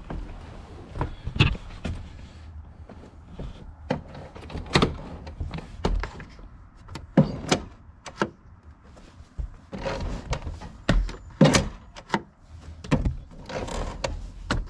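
GMC/Chevy pickup parking brake being set and released with its newly fitted release handle and cable: a series of sharp clicks and thunks at irregular intervals.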